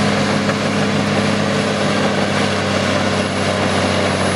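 Caterpillar D7R crawler bulldozer's diesel engine running steadily as the machine pushes dirt with its blade, a low, even drone.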